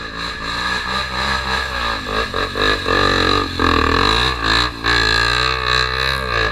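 Single-cylinder trail motorcycle engine, a Tornado 250, running under load with the revs rising and falling. There are several brief drops in sound as the throttle is rolled off and opened again.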